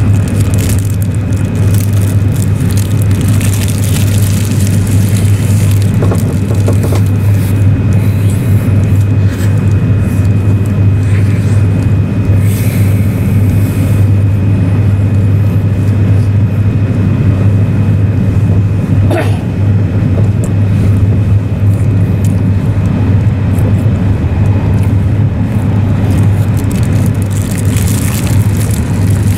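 Steady low rumble of an E6 series Shinkansen's passenger cabin while the train runs, with a faint high whine over it. A plastic onigiri wrapper crinkles briefly a few times, most plainly near the end.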